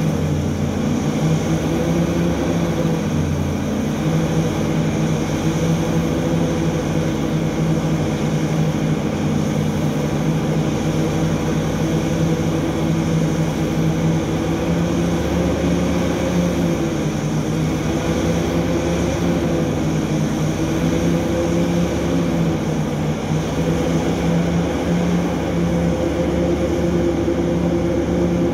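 Large diesel engine of a Hitachi 3600 mining excavator running steadily under load, together with the haul truck it is loading. Its pitch dips and rises slightly a few times.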